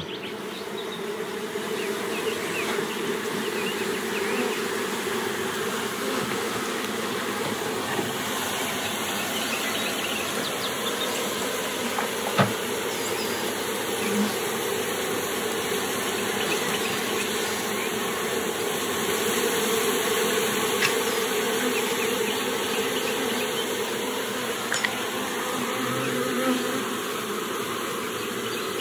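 Honeybee colony buzzing from an opened nucleus box, a steady dense hum of many bees. A few sharp clicks stand out, the loudest about twelve seconds in.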